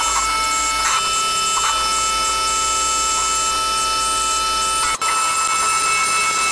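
CNC milling machine running with a steady whine of several tones. From about five seconds in, an end mill cuts into a metal block under a flood of coolant.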